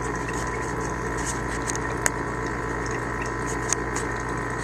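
Steady machinery hum, like a pump running, with a few faint clicks.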